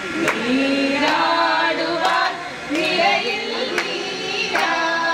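Women singing a song together into a microphone, held notes with several voices, and a few sharp claps along with it.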